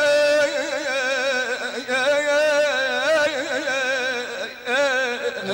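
Male mugham singer sustaining a wordless melisma in the Segah mode, his voice wavering in quick ornamental trills around held notes. A short break comes near the end before a new phrase starts.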